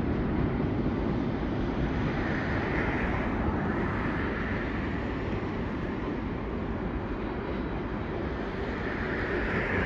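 A train rolling past on the rails: a steady rumble and rush of wheel noise, with no horn.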